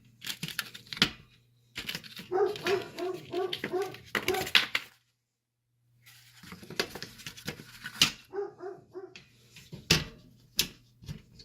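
Dogs barking and whining in quick runs of short yips, with knocks and clatter between them and a steady low hum underneath; the sound breaks off completely for about a second in the middle.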